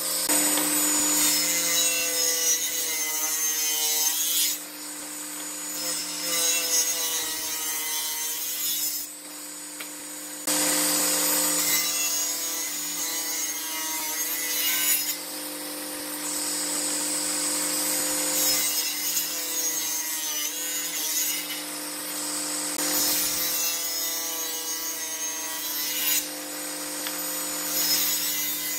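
Table saw cutting thick wooden blocks: a steady motor hum under the blade's harsh cutting noise, which drops away briefly a few times between passes.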